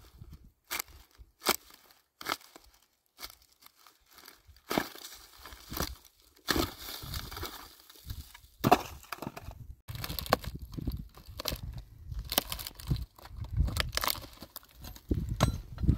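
Dry dead branches and brush being pulled loose and snapped by hand: scattered sharp cracks and crackling of dry wood, with heavier dull knocks in the second half.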